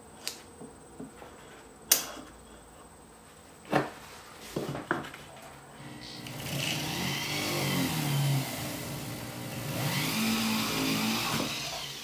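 Flex-shaft rotary tool: a few sharp metallic clicks as a bit is fitted into the handpiece, then the motor runs for about five seconds, its pitch rising and falling with the speed, as a small brush wheel buffs a silver spoon handle. The motor stops shortly before the end.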